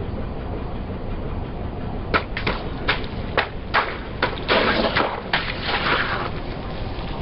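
Car tyre rolling slowly over something brittle and crushing it: a run of sharp cracks and snaps from about two seconds in, thickening into dense crunching, then fading, over the low rumble of the car's engine.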